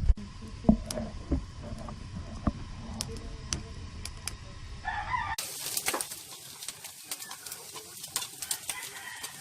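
A rooster crowing, with a few sharp clicks or knocks in the first few seconds.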